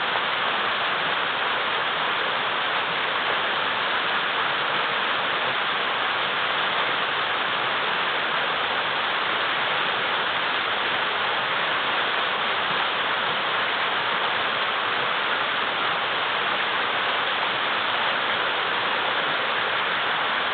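Mountain river rushing over and between many large boulders: a steady, even roar of churning water.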